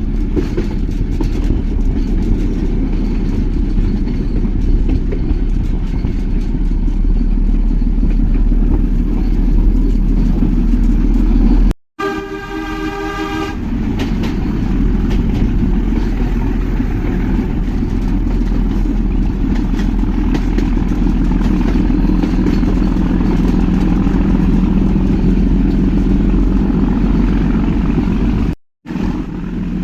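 Nilgiri Mountain Railway toy train running, a steady low rumble of the coaches on the rails, with a short horn toot about twelve seconds in.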